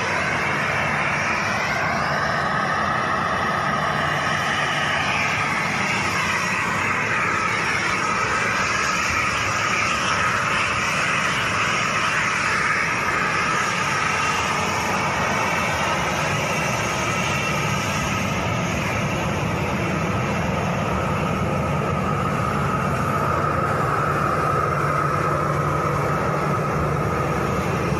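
Boeing 737 airliner's turbofan engines at low power as the jet rolls out along the runway after landing and taxis close past, a steady high whine over a low hum. The whine wavers in pitch during the first few seconds, then holds steady.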